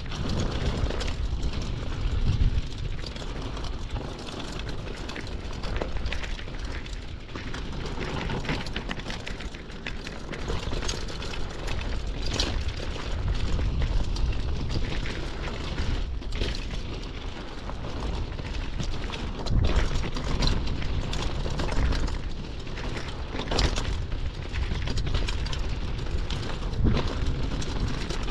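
Mountain bike descending a rocky dirt trail, heard from a rider-mounted camera: wind buffeting the microphone and a low rumble, with frequent knocks and rattles as the tyres hit stones.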